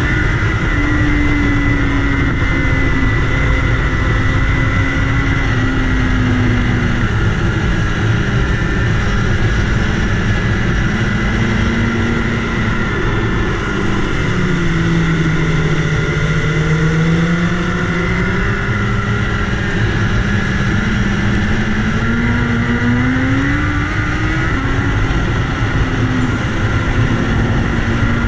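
BMW S1000RR's inline-four engine running at road speed under a steady rush of wind noise. The engine note sinks about twelve seconds in, stays low for a few seconds, then climbs back up over the following several seconds.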